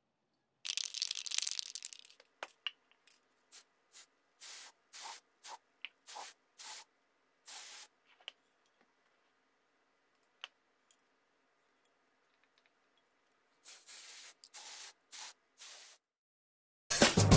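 Aerosol can of Mr. Hobby Mr. White Surfacer 1000 spraying primer surfacer onto sculpted figure parts: one longer spray about a second in, then a string of short puffs, a pause, and another run of short bursts near the end.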